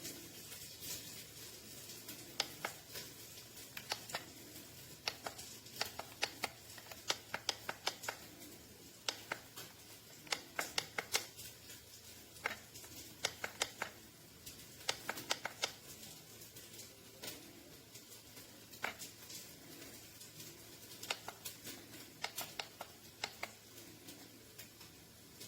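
Scattered clicks and taps, in irregular clusters, from handling a cordless tire inflator and pressing its buttons. The inflator's pump does not start: the unit is dead.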